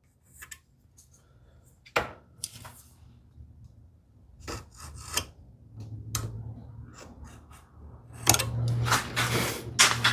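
A marking tool scraping along wood while laying out a curved groove line, with scattered light taps and clicks, then a louder run of scraping strokes about eight seconds in.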